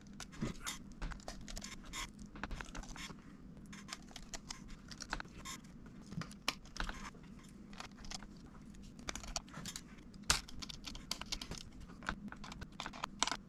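Faint, irregular small clicks and scrapes of a precision screwdriver turning tiny screws into a MacBook Pro's aluminium chassis, with light handling of the parts; a few sharper clicks stand out about six and ten seconds in.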